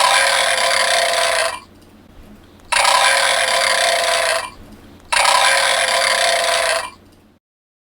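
Recorded tiger roar played three times through a children's sound book's small speaker, each roar about a second and a half long with little low end, over a faint electrical hum.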